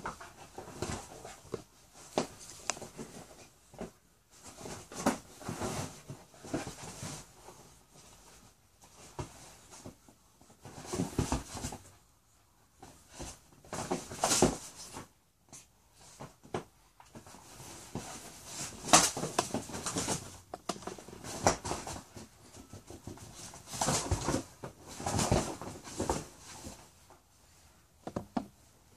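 A dog and a rooster scuffling on a leather sofa: irregular bursts of scrabbling and rubbing against the leather, a few seconds each, with short pauses between.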